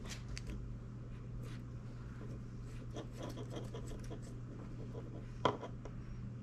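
Faint scratching and small plastic clicks of a Posi-Tap wire connector being twisted by hand onto a turn-signal wire, with one sharper click about five and a half seconds in. A steady low hum runs underneath.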